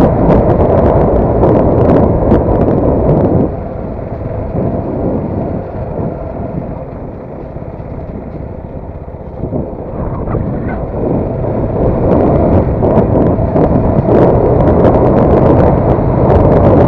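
Wind rushing over the microphone of a CFMoto NK250 motorcycle on the move, with the bike's engine underneath. About three seconds in the noise drops sharply as the bike slows to around 24 km/h, then it builds again as the bike speeds back up.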